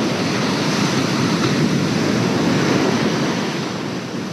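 Ocean surf washing onto the shore, a steady rush of water that eases slightly near the end, with wind on the microphone.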